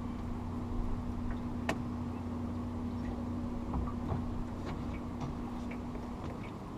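Boat motor running steadily at low speed to hold the boat against the current, with scattered light ticks and clicks; the motor's steady tone stops about six seconds in.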